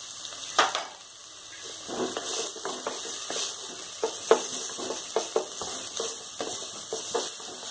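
Wooden spatula stirring and scraping chopped onions around a non-stick kadai in hot oil, with light sizzling. A sharp knock comes about half a second in, then repeated scrapes and knocks of the spatula against the pan.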